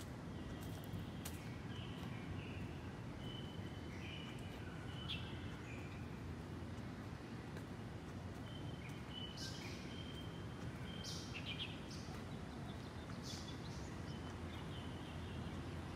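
Birds chirping in short repeated notes, with a few sharper, higher chirps in the second half, over a steady low outdoor rumble.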